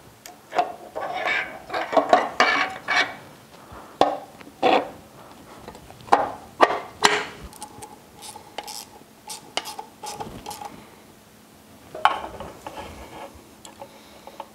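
Metal parts and tools clinking and knocking in irregular clusters, some with a short metallic ring, as an outboard gearcase is reassembled. The propeller shaft housing is fitted back into the Yamaha F225 lower unit and a dial indicator is mounted to check gear backlash.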